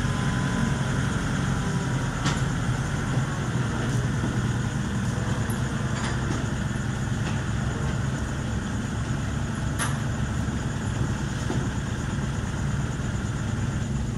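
Kubota L4508 tractor's diesel engine running steadily at low revs as the tractor with its rotary tiller climbs the ramps onto a truck bed, with a few faint knocks.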